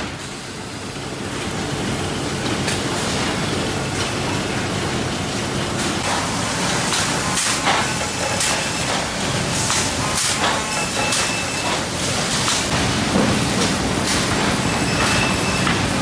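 Steady din of sawmill conveyors and machinery: chain transfer decks running, with boards clattering and sharp knocks scattered throughout. The sound comes up over the first couple of seconds.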